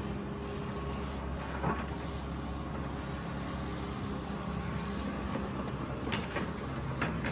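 Engine running steadily, with a few short sharp knocks and clatters about two seconds in and again near the end.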